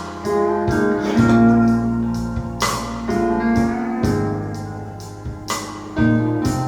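Blues song in an instrumental passage: guitar notes plucked and left ringing over a steady bass line, played back on Bowers & Wilkins 705 Signature loudspeakers.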